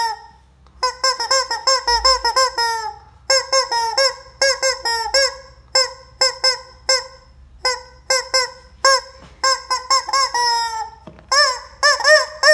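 Yellow rubber squeaky chicken being squeezed over and over, giving many short squawks in quick runs, with a few longer drawn-out squawks near the end.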